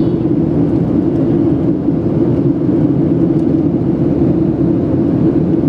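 Steady cabin drone of a Boeing 737-700 in the climb: its CFM56 turbofan engines and the rush of air over the fuselage, heard from a seat over the wing, with the most energy in a low hum.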